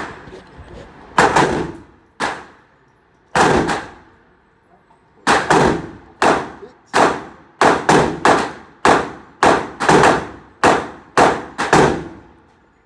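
Gunshots in an indoor shooting range: a string of sharp reports, each with a short echoing tail. A few come spaced apart at first, then a quicker run of about one and a half a second follows over the second half.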